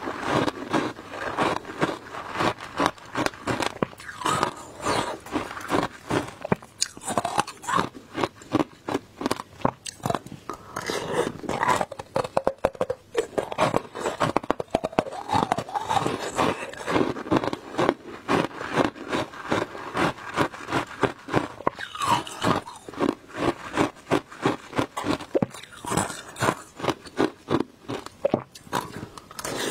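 Shaved ice in passion fruit juice being bitten and crunched between the teeth, a continuous run of crunches several times a second.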